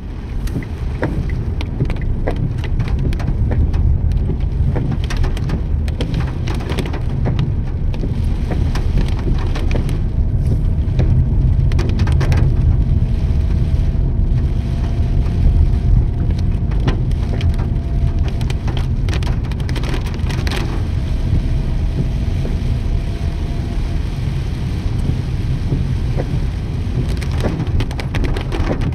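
Steady rain heard during a drive, with a dense low rumble from the moving vehicle and many sharp ticks of drops striking. A faint steady tone runs through the middle stretch.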